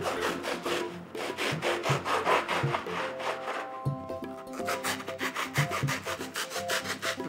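A thin saw blade sawing back and forth through a block of foam sponge in quick, rasping strokes, under soft background music.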